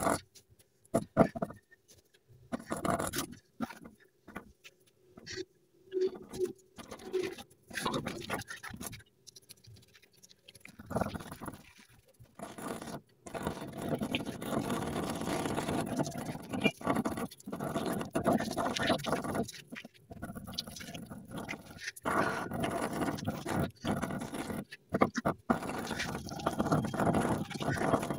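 Hand lay-up of fiberglass: chopped strand mat being pressed down by hand and a resin brush scrubbing and stippling wet resin into the mat. It comes as short scratchy spells at first and becomes an almost continuous rough brushing from about halfway through.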